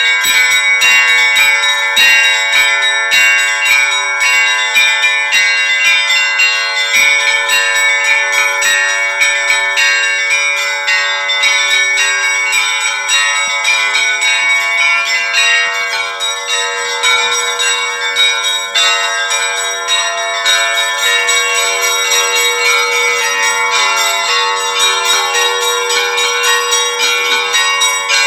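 Russian Orthodox church bells rung by hand (kolokolny zvon): a fast, even run of bell strokes, several a second, over the long ringing tones of the bells.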